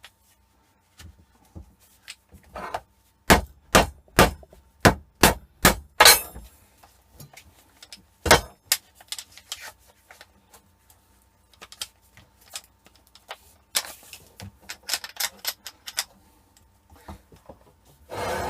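Sharp knocks and clatter as a MIG welding torch handle is worked apart, with tools and parts striking a hard surface. There is a quick run of about eight knocks, one more a couple of seconds later, then lighter clicks and rattles.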